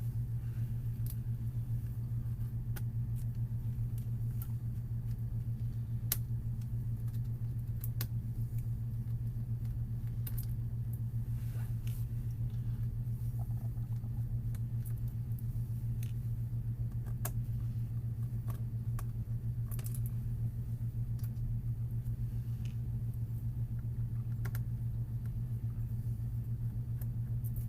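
A steady low hum throughout, with scattered small clicks and ticks from a screwdriver and small screws being worked while the laptop's LCD panel is unscrewed.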